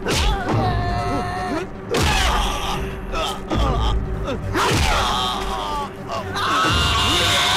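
Men yelling and groaning in a film fight scene, with a thud at the very start.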